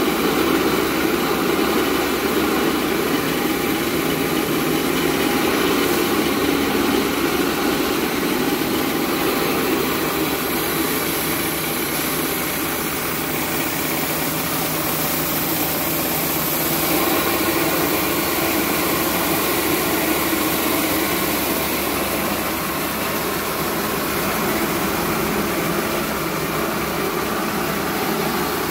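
Small electric rice milling machine running steadily while hulling paddy: an even, unbroken whirring machine noise.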